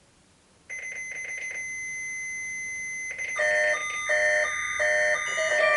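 Electronic alarm beeping: a rapid run of high beeps, then a steady high tone held for about two seconds. About three seconds in, more beeps lead into a sequence of electronic chime tones that change pitch every half second or so.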